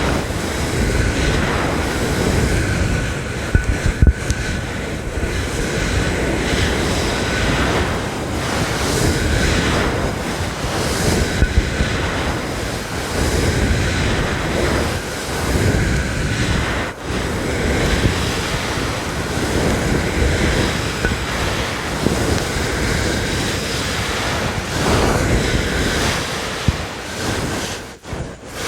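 A brush worked against a fluffy microphone cover close to the mic, giving a loud, continuous rushing scratch. It swells and dips as the strokes change, with a short drop near the end.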